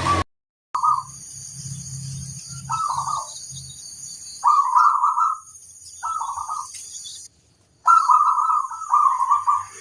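Zebra dove (perkutut) cooing in short, separate warbling phrases, with the last two running together near the end, over a steady high-pitched hiss. The sound cuts out briefly twice.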